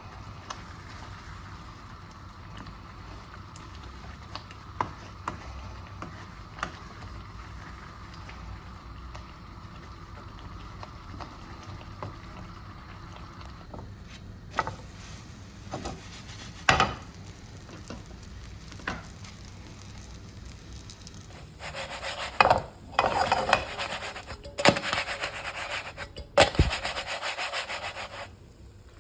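A kitchen utensil scraping and knocking against cookware: a few sharp knocks, then a run of louder scraping in the last several seconds, over a steady hum in the first half.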